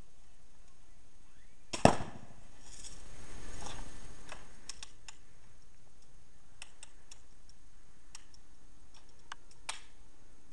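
A Red Ryder BB gun fires once with a sharp crack about two seconds in, popping a balloon. A noise then swells and fades over the next few seconds. After that, the gun's lever-action cocking mechanism clicks several times as it is re-cocked.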